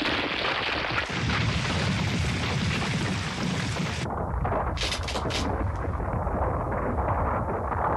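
Anime battle sound effects of a huge blast: a loud, dense rumble with hiss. It turns duller about halfway through, with a few sharp cracks shortly after.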